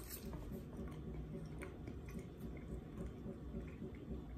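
A person chewing a mouthful of pan-fried trout, with scattered soft wet clicks and smacks.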